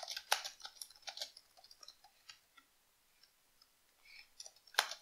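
Computer keyboard keys clicking in quick, irregular runs of typing, with a pause of about a second and a half partway through and a sharper key click near the end.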